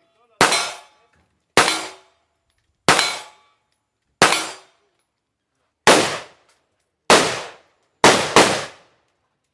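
Gunshots fired one at a time at a shooting range, eight in all, about one every second and a half, with the last two close together; each shot has a short echoing tail.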